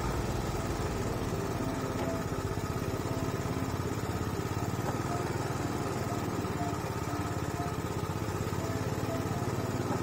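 Motor-driven sugarcane juice machine running steadily, its geared steel rollers crushing sugarcane stalks fed through by hand.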